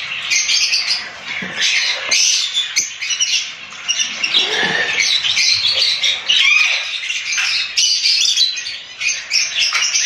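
A crowded aviary of small parrots, lovebirds and cockatiels, squawking and chirping continuously, many birds calling over one another in a dense, shrill chatter.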